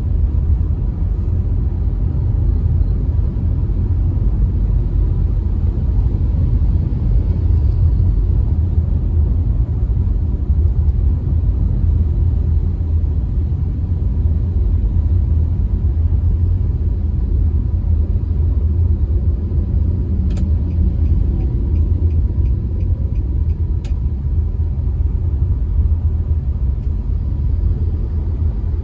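Steady low rumble of a car being driven, heard from inside the cabin: engine and tyre noise. A short run of light, evenly spaced ticks comes about two-thirds of the way in.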